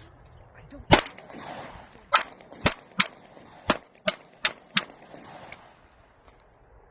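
Gunshots: about eight sharp shots fired in quick, uneven succession over four seconds, the first the loudest and the last fainter.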